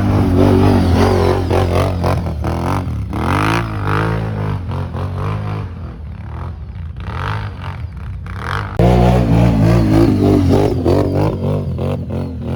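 ATV engine revving up and down, its pitch rising and falling again and again. It is loud at the start, eases off around the middle, and jumps louder again about nine seconds in.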